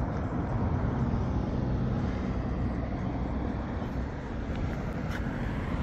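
Steady low rumble of road traffic, cars passing on a city street.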